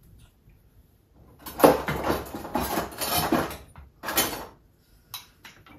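Cooking oil glugging out of a plastic bottle into a frying pan, in a long spell starting about a second and a half in and a shorter one about four seconds in, with a short click near the end.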